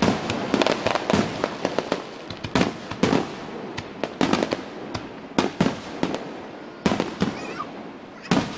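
Fireworks display: aerial shells bursting, sharp bangs each followed by an echoing rumble. They come in a quick volley at first, then as spaced single bangs.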